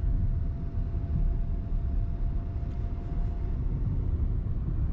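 Chevy Spark running down the road, heard from inside the car as a steady low engine and tyre rumble. A faint steady whine runs under it and fades out about three and a half seconds in.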